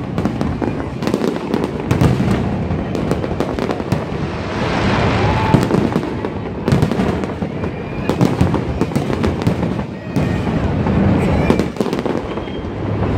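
Fireworks display: a rapid, irregular run of aerial shells bursting overhead, bang after bang, with a denser stretch of crackling about four to six seconds in.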